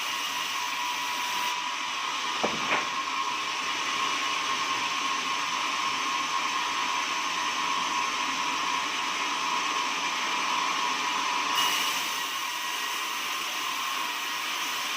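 Sawmill running with a steady whir and a thin steady tone, with a short knock about two and a half seconds in.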